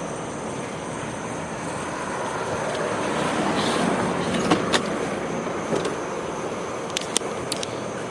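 A passing vehicle's rush of noise, swelling toward the middle and easing off, with a few sharp clicks halfway through and near the end.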